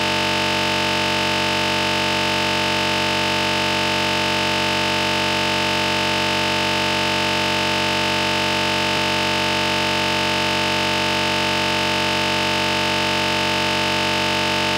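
A steady electronic buzzing drone made of many fixed tones that never changes in pitch or loudness, cutting off suddenly near the end.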